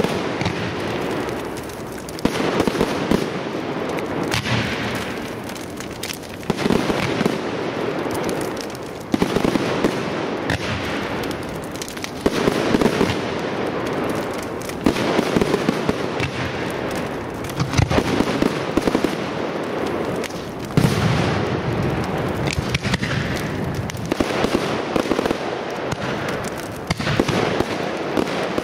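Aerial firework shells of a professional display bursting one after another, a loud bang every second or two over continuous crackling and popping.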